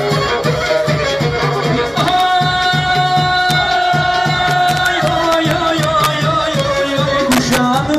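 Black Sea kemençe playing a dance tune over a steady beat, with one long held note from about two seconds in, lasting some three seconds.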